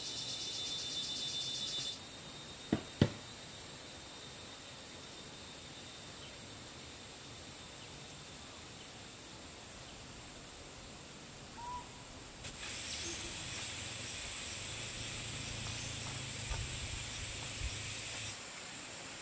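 Outdoor insect chorus, a steady high-pitched buzzing and chirring that changes abruptly twice, with two sharp clicks about three seconds in.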